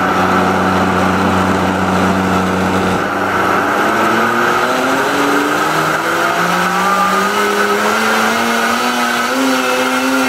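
Vitamix blender running on its soup program, pureeing hot soup. The motor hum holds steady at first, then rises steadily in pitch from about halfway through as the motor speeds up.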